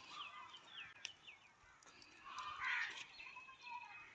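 Birds calling: a quick string of short, high calls, then a louder, noisier call near the middle.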